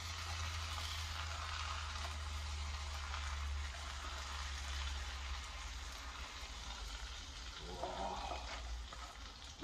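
Omelette sizzling faintly in a hot frying pan as it is worked out of the pan with a spatula, over a low steady hum.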